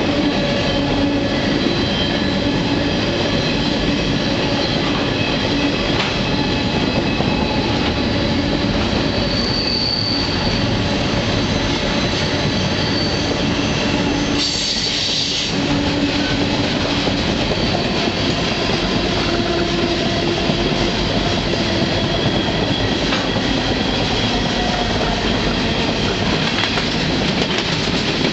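Freight train running at speed, heard from aboard one of its cars: a loud, steady rumble and rattle of wheels on rail, with thin squealing tones from the wheels that come and go. A brief higher hiss rises about halfway through.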